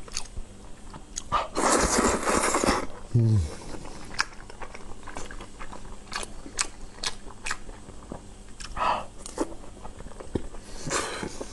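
Close-miked eating of braised pork and wide glass noodles: chewing with many wet mouth clicks and smacks, a louder second-long stretch of noisy eating about two seconds in, and a brief falling 'mm' hum just after it.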